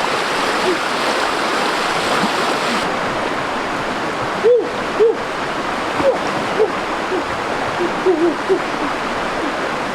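Steady rushing of running water, with short hooting animal calls that rise and fall in pitch, scattered irregularly and coming most thickly in the second half.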